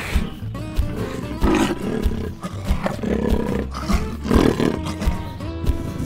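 Lions roaring, about three rough roars in a row, over background music with a steady beat.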